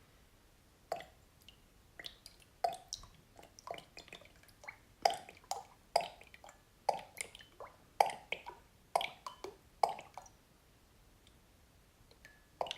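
Fork oil glugging from a bottle as it is poured out to be measured, a rapid run of hollow plops about two a second that stops about ten seconds in. A small knock follows near the end.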